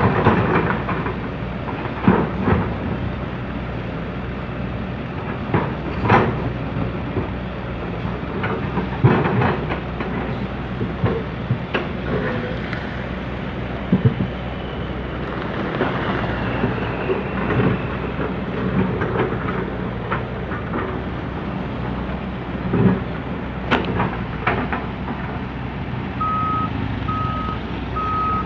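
Komatsu PC200CE hydraulic excavator's diesel engine running while it digs soil, with repeated clanks and knocks from the bucket and soil. Near the end a regular beeping alarm starts, about two beeps a second.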